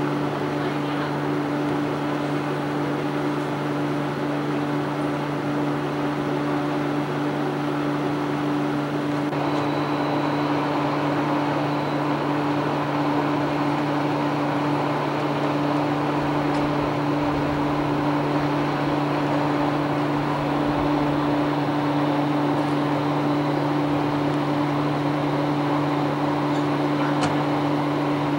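A steady low mechanical hum with an even hiss over it, unchanging throughout; the hiss turns a little brighter about a third of the way in, and there is one faint click near the end.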